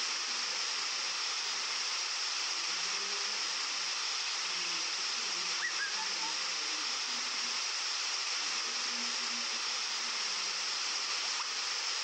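Waterfall: a steady rush of falling water, unchanging throughout.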